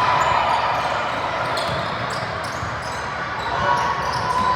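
Basketball game in a gym: a ball bouncing on the hardwood court amid a steady hubbub of players' and spectators' voices, with short sharp knocks scattered through it.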